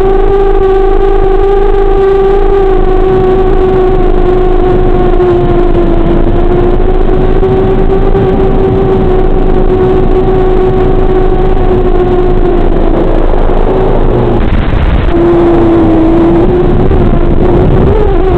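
Electric motor and propeller of a small FPV aircraft at low cruise power, giving a steady whine that wavers slightly in pitch. A little past the middle it breaks up briefly into a rush of noise, then the pitch climbs near the end as the throttle changes.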